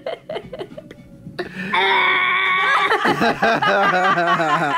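A child giggling at first, then about two seconds in one long, high, held 'aaah' that turns wavery in pitch over its last couple of seconds.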